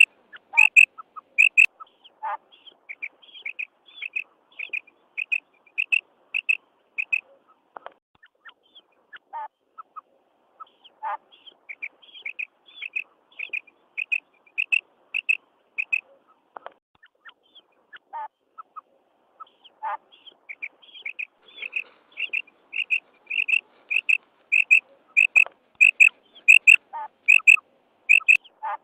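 Female common quail giving its 'kirak' call: short high notes repeated about twice a second in runs, broken by brief pauses. This is the female's call that is played as a lure in quail hunting.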